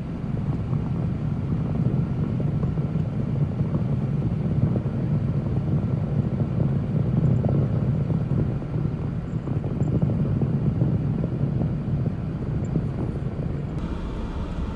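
Idling vehicle engine: a steady low rumble.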